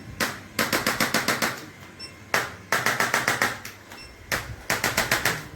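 Rapid mechanical tapping at about ten taps a second, in three bursts of about a second each, roughly two seconds apart. This fits a chiropractic percussion adjusting instrument working on the back.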